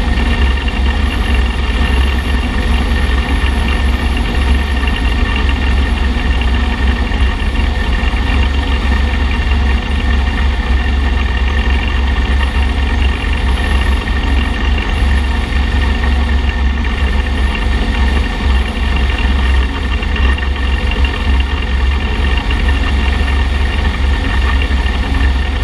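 Motorcycle riding at a steady cruising speed: engine running evenly under heavy, constant wind and road rumble on a camera mounted by the front wheel.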